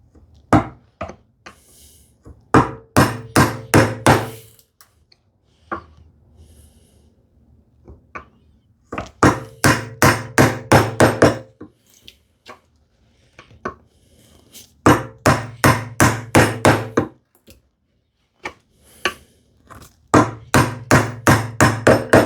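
Mallet striking a bevel-edge chisel as it chops a mortise into a hardwood leg: sharp knocks in quick runs of about five blows a second, four runs with short pauses between, plus a few single strikes near the start.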